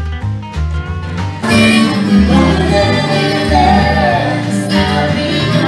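Background music led by plucked guitar over a stepping bass line, growing fuller and louder about a second and a half in.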